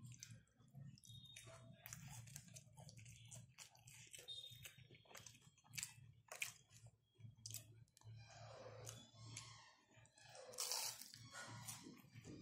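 A person chewing a crispy fried vegetable vada (garelu) dipped in peanut chutney, with irregular soft crunches and wet mouth clicks.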